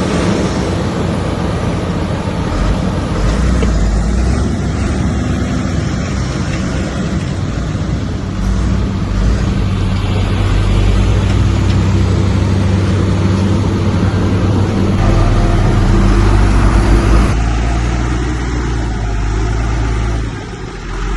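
Heavy diesel earthmoving machinery working, its engine running steadily under load over a dense clatter and rumble. The sound changes abruptly about 17 seconds in.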